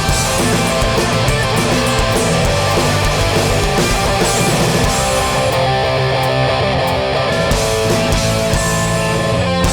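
Hardcore punk band playing live: distorted electric guitars over bass and drums in an instrumental passage, with the cymbals dropping out for a couple of seconds past the middle.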